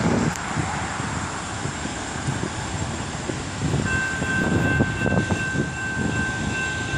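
Low rumbling outdoor noise, then about four seconds in a railroad grade-crossing warning bell starts ringing steadily as the crossing's flashing signals activate for an approaching train.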